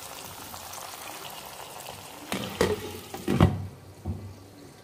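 Watery curry bubbling in a wok, then a glass lid set down on it with two clanks about two and a half and three and a half seconds in, and a lighter knock after. Once the lid is on, the bubbling is muffled and quieter.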